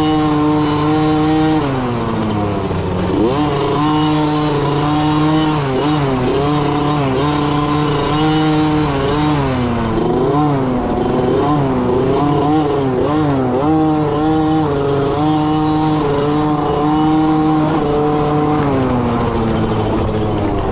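Small youth dirt bike engine heard from on the bike while riding, its pitch climbing and dropping again every few seconds with the throttle.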